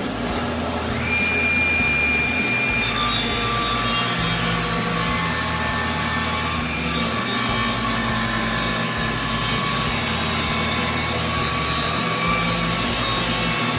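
Table saw ripping a glued-up hardwood board lengthwise, blade cutting steadily through the wood with a faint whine whose pitch shifts about three seconds in.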